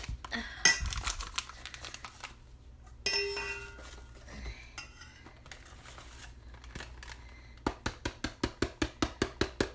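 Kitchen handling sounds: a package being worked open and dishes clinking, then near the end a quick, even run of sharp taps, about six a second.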